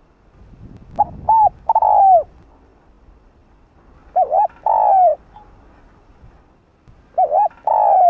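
Spotted dove cooing: three phrases about three seconds apart, each two short coos followed by a longer note that falls away at its end.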